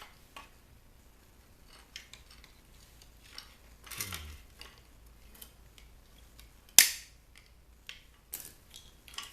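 Scattered clicks and snaps of hand tools working on a bug zapper's plastic housing and wiring, with one sharp, loud snap about seven seconds in.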